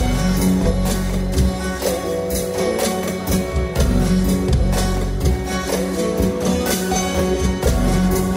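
Instrumental dance music with a steady percussion beat of about two strokes a second under sustained pitched instrument lines.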